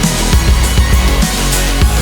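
Background music: a heavy, driving track with pounding bass hits and crashing cymbals.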